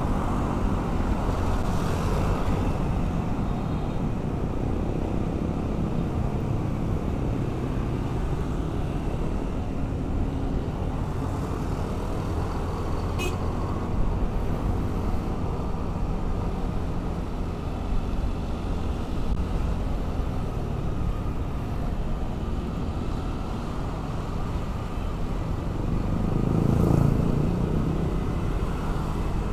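Motorcycle riding through city traffic: a steady rush of wind on the camera microphone over engine and road noise, with one brief sharp tick partway through and a louder swell near the end.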